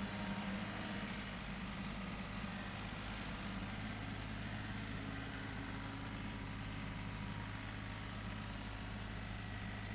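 Tractor engine running steadily at an even speed, dropping slightly in level about a second in.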